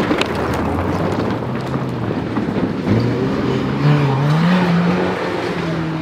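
Classic rally car's engine running hard on a stage: a steady note for the first couple of seconds, then the pitch dips and climbs again from about three seconds in as the car accelerates.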